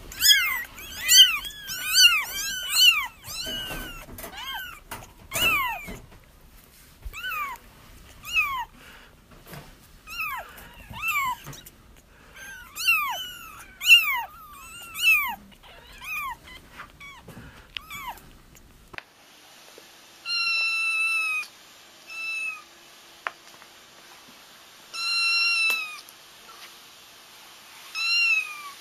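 Kittens crying: many short, repeated mews that rise and fall in pitch, several overlapping at first, then more spaced out. About two-thirds through, the recording changes to a few longer, drawn-out cries. These are the calls that draw a mother cat back to her kittens.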